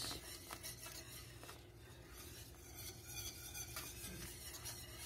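Wire whisk stirring a thick béchamel sauce in a metal skillet, with faint, irregular scraping strokes against the pan.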